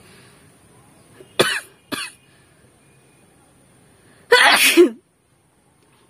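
A woman sneezing: two short, sharp sneezes about a second and a half and two seconds in, then one longer, loud sneeze about four seconds in.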